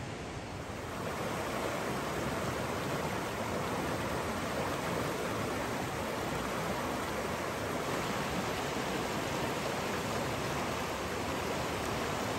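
Shallow river rushing over rocks and riffles, a steady hiss of flowing water that gets louder about a second in.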